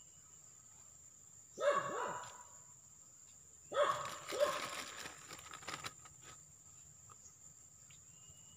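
A dog barking a few times, in short bursts about two and four seconds in.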